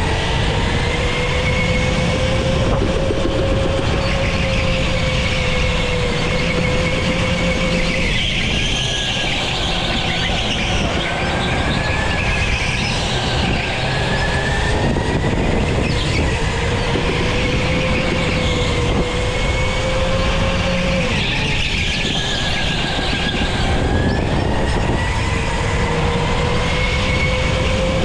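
Electric go-kart drive motor whining at speed, the pitch climbing on the straights and falling sharply under braking about 8 and 21 seconds in. Wind and tyre noise on the onboard camera run beneath it.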